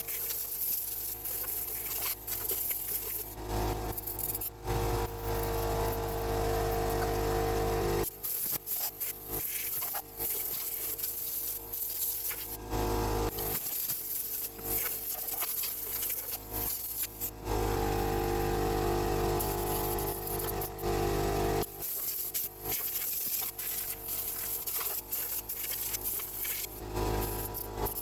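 Metal tool work on a car's front axle and suspension: scraping and clicking, with stretches of a steady machine-like hum lasting several seconds that stop and start again.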